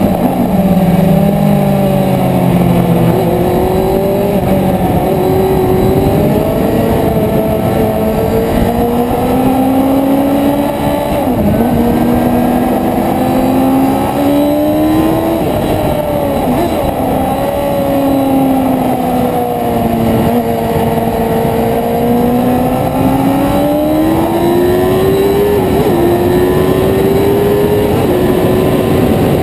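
Sport motorcycle engine at speed on track, heard onboard over steady wind rush: its pitch climbs slowly under acceleration and falls back into corners, with quick breaks at gear changes about eleven seconds in and again near the end.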